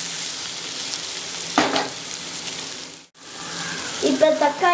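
Sliced onions and tomatoes, already softened, sizzling in hot oil in a nonstick wok as they are stirred with a wooden spatula, with one louder scrape of the spatula about a second and a half in. The sizzle cuts out for a moment just after three seconds in.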